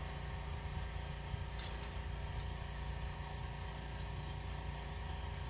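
Steady low mechanical drone of a running machine or engine, with a couple of faint metallic clinks of hand tools on the valve train about a second and a half in.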